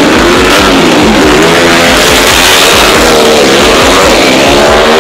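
Small horizontal-cylinder drag motorcycle engine with a 57 mm bore and stock stroke, revved hard and launching off the start line. Its pitch climbs and drops repeatedly.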